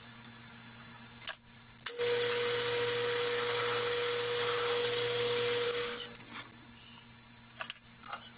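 A power tool cutting into an aluminum spacer blank for about four seconds: a loud, steady grinding noise with one held tone, starting and stopping abruptly after a couple of knocks. A faint steady hum sits underneath.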